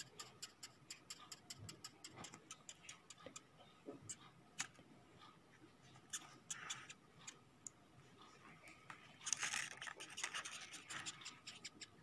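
Dung beetle stridulating while pinched between fingers, the 'crying' sound it makes when touched: a faint run of sharp clicks, a few per second, thickening into a denser scratchy rasping about nine to eleven seconds in.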